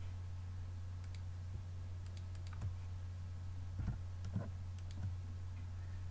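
Scattered clicks of a computer keyboard and mouse, a dozen or so at irregular intervals, as keys are pressed and the mouse is clicked to move a mesh, over a steady low electrical hum.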